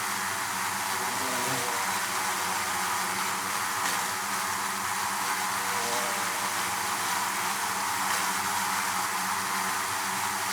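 Bees in a hive buzzing together in a steady drone, with a few fainter buzzes wavering in pitch beneath an even hiss.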